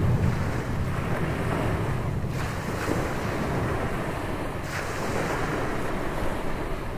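Ocean surf breaking and washing up on a sandy beach, with wind rumbling on the microphone. A wave washes in brighter about two seconds in and another near five seconds.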